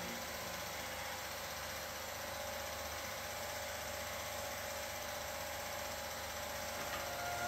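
Steady mechanical whirring hum with hiss from a running 8mm film projector.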